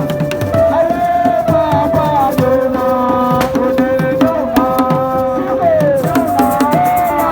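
Music: hand drums beating a steady rhythm under a held, wavering melodic line.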